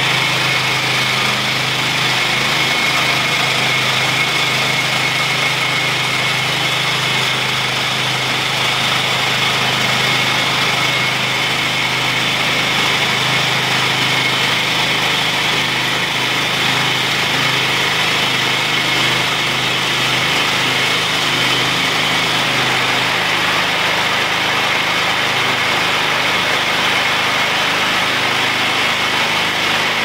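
Petrol engine of a chain sawmill running steadily at speed, driving the saw chain through a log in a lengthwise cut, with a continuous high chain whine over the engine hum.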